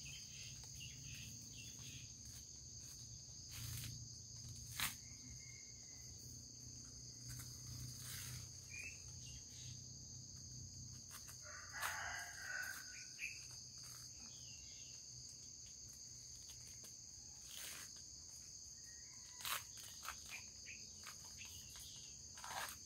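Steady chorus of insects in rural garden undergrowth, with a rooster crowing once about halfway through. A few sharp knocks stand out, one near the start and two near the end.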